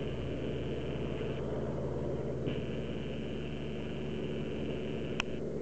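Cessna 172's piston engine running steadily, with a thin high whine that drops out for about a second early on and comes back. A single short click near the end.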